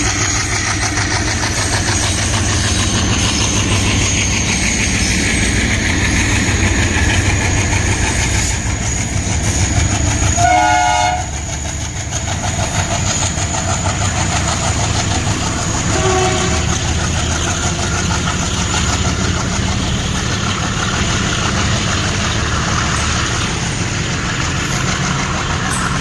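Two Indian Railways diesel trains passing on parallel tracks: the heavy chugging of a goods train's twin diesel locomotives mixed with the clatter of wagon and coach wheels over the rails. A short horn blast sounds about ten seconds in, and a shorter, fainter one around sixteen seconds.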